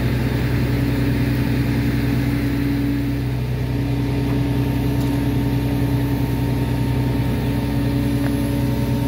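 An engine idling steadily at a constant speed, a low, even hum that does not rise or fall.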